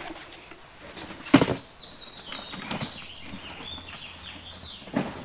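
Handling noise of stiff clear plastic: rolled cutouts in plastic sleeves rustling and crackling, with one loud crackle about a second in and smaller ones later. Faint high twittering chirps run underneath in the middle.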